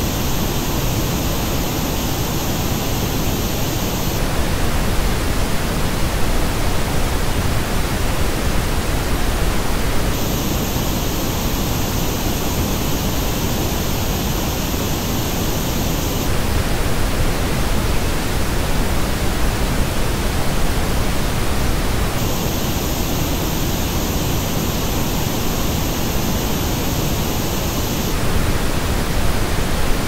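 Steady pink noise test signal, switching back and forth every six seconds or so between the flat reference noise and the same noise as reproduced by HiFiMAN Arya headphones. The headphone version sounds duller, with a dip in the upper mids and a deep notch in the treble. It plays three times, the reference version in between.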